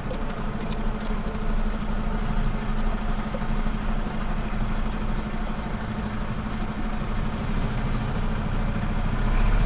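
Lorry's diesel engine idling steadily, heard from inside the cab, a little louder near the end.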